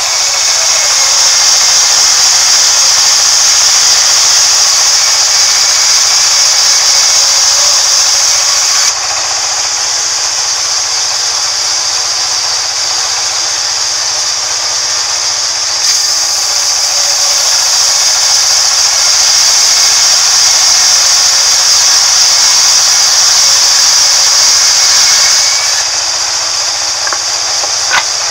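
Sawmill band saw ripping a thick timber plank lengthwise: a loud, steady, high hiss of the blade in the wood. The sound drops a little about nine seconds in, comes back about seven seconds later, and eases again a few seconds before the end.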